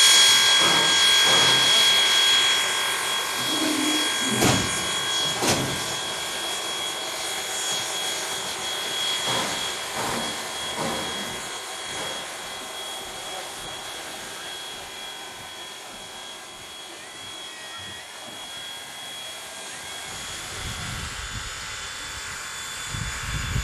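Steam train running, loud at first and fading away through the middle, with a steady high whine and a few knocks; a low rumble builds up again near the end.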